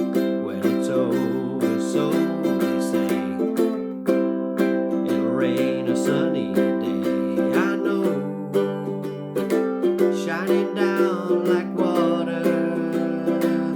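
Enya EUC-MAD ukulele with low-G Aquila Lava strings being strummed in a steady rhythm, several strokes a second, with a wavering melody line above the chords in parts.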